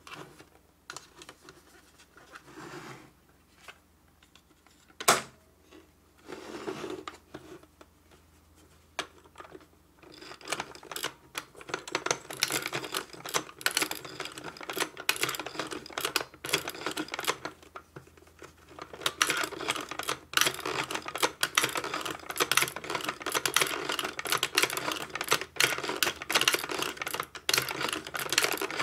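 Lovely Lamb hand-cranked toy sewing machine: after a few scattered clicks and faint fabric rustles, its plastic mechanism and needle clatter rapidly as the handwheel is turned, starting about ten seconds in. The clatter pauses briefly about two-thirds of the way through, then resumes.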